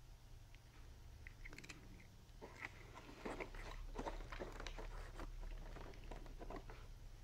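Kitten chewing crunchy cat treats: a quick run of short crisp crunches that starts about one and a half seconds in and thickens from between two and three seconds.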